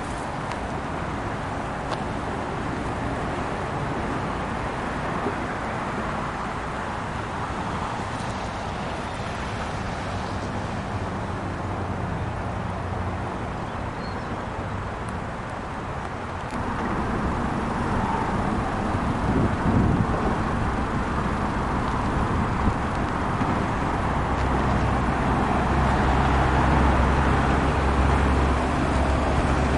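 Outdoor street ambience of traffic noise with a steady engine hum. The sound shifts abruptly about halfway through, and a low engine drone grows louder over the last several seconds.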